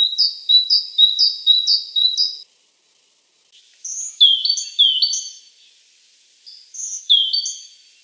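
Great tit singing its two-note "teacher-teacher" song: five quick phrases, each a higher note falling to a lower one, over about two and a half seconds. After a pause of about a second, more high whistled notes follow, several sliding steeply downward.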